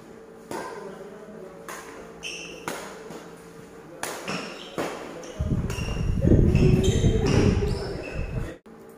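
Badminton rally in a hall: rackets strike the shuttlecock in sharp, ringing hits every second or so, with short high squeaks from shoes on the court floor. From about five and a half seconds in, a loud low rumbling noise with voices in it takes over, then cuts off suddenly near the end.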